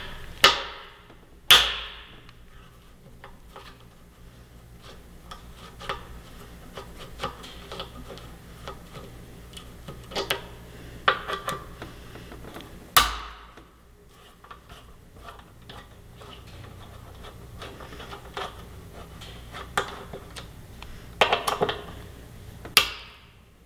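Hand tools and metal parts clicking, scraping and clanking as the bolts of a Yamaha R3's fuel cap and base are undone and the old cap and base come off. A few sharp clanks stand out: twice near the start, once about halfway, and a cluster near the end.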